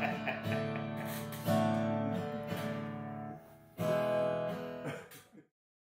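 Acoustic guitar strumming chords, each struck and left to ring; a last chord near the end rings out and fades away.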